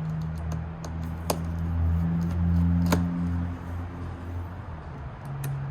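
Screwdriver work on the inside of an aluminium iMac, with two sharp clicks about a second and three seconds in, over a low steady hum that swells in the middle.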